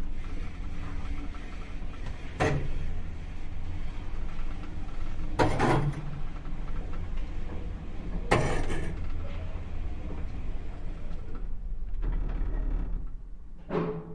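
Elevator running with a steady low rumble, with a sharp mechanical clunk about every three seconds: three in the first half and one more near the end.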